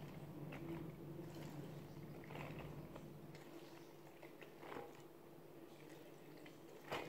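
Faint soft squishing and a few light taps as boiled pasta is pulled by hand and fork out of a plastic colander into a metal baking pan, over a low hum that stops about three seconds in.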